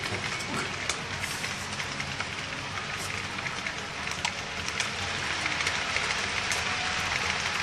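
Model freight cars rolling past on the track, wheels giving a steady rattling hiss with scattered small clicks, over a low steady drone.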